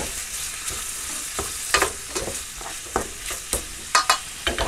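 Chunks of pork belly and vegetables sizzling in sunflower oil in a frying pan, stirred with a utensil that scrapes and knocks against the pan in scattered clicks.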